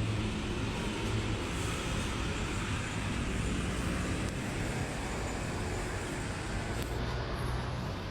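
An engine running steadily: a low hum under an even rushing noise.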